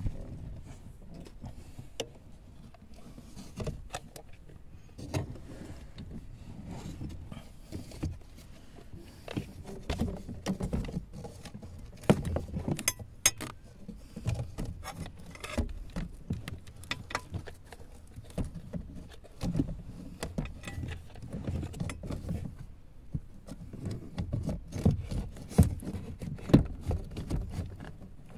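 Irregular clicks, knocks and scrapes from parts being handled under a car's dashboard while a cabin blower fan is fitted into its housing. A short rattling flurry comes about halfway through, and there are louder knocks near the end.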